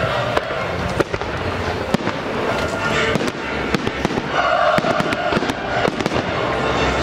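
Fireworks show: aerial shells bursting in a rapid, irregular series of sharp bangs and crackles, over the display's music.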